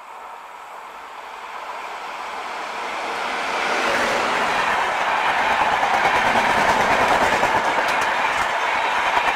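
Indian Railways WAP-7 electric locomotive and its LHB passenger coaches passing at speed. The rumble and rattle of wheels on rail grows steadily louder over the first four seconds as the locomotive approaches and goes by, then holds as a loud, steady rush with clickety-clack from the coaches running past.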